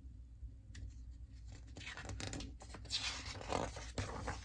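Paper rustling in a few short bursts as a picture book's page is handled and turned, loudest about three seconds in.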